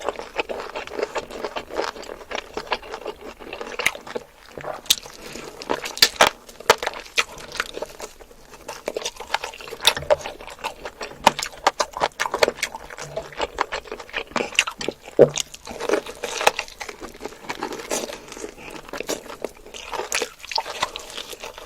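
Close-miked eating: a steady stream of crunchy bites and chewing, with many small clicks and crackles.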